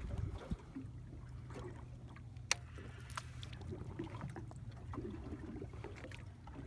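A small fishing boat's motor running with a steady low hum, along with scattered light clicks and knocks; the sharpest click comes about two and a half seconds in.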